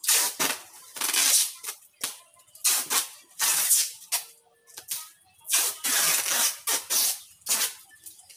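Plastic wrapping on bagged stock rustling and crinkling in irregular bursts as the bundles are handled and shifted.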